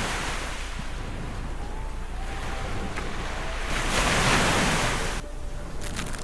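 Ocean surf washing on a sandy beach, with wind on the microphone; the wash swells about four seconds in, then drops away sharply.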